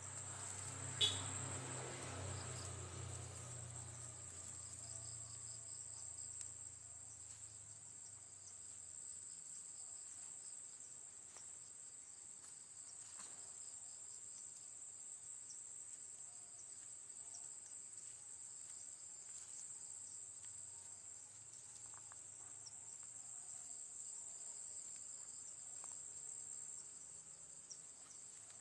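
Steady high chirring of crickets at night, with a sharp click about a second in and a faint low hum dying away over the first several seconds.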